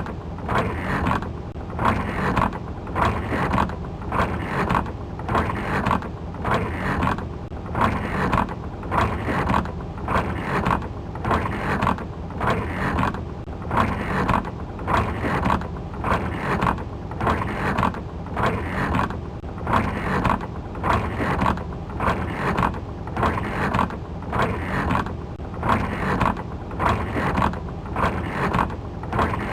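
Car windshield wipers sweeping back and forth, about one stroke a second, heard from inside the car over a steady low rumble.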